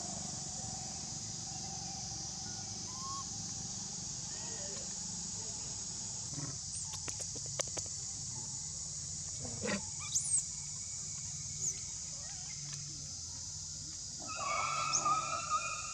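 Outdoor ambience with a steady high-pitched hiss, a few short clicks and brief chirps, and near the end a pitched animal call lasting about a second and a half.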